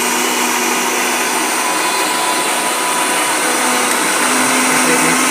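Electric mixer grinder running steadily at full speed, grinding lentils, green chillies and water into a smooth batter paste.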